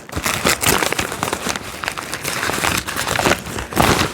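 Plastic packaging crinkling and rustling as parts are handled and pulled out of a bag, with many sharp crackles.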